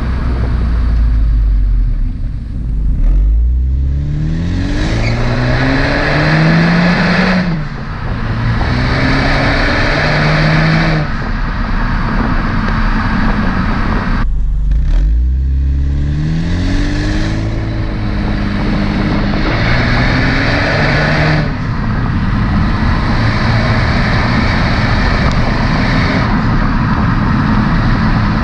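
Honda Civic Hatchback Sport's turbocharged four-cylinder exhaust, heard at the tailpipe, accelerating hard through the gears twice. The pitch climbs and drops back at each upshift, and the car settles into a steady cruise in the last few seconds.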